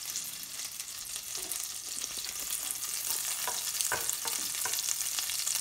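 Butter sizzling and crackling as it melts in a non-stick pan, a fine steady hiss with many tiny pops, growing slightly louder. A wooden spatula stirring it scrapes and taps against the pan a few times in the second half.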